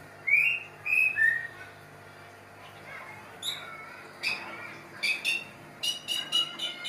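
A breeding pair of white-rumped shamas calling in an aviary: a few short clear whistled notes, scattered chirps, then a quick rattling run of clicks near the end. A faint steady low hum runs underneath.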